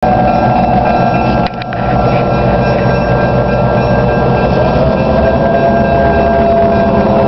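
Arkansas Midland locomotive 707's multi-chime air horn blowing a long chord, with a short break about a second and a half in, over the low rumble of its diesel engine. The horn sounds like a Leslie S-3L.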